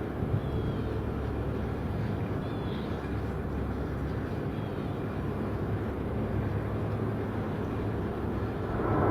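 Steady low rumble of jet aircraft engines, with a few faint short high chirps.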